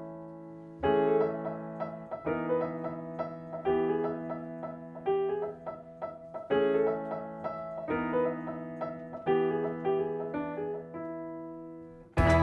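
Solo piano music: slow phrases of struck notes and chords, each left to ring and fade. Just before the end, a louder, fuller piece of music starts abruptly.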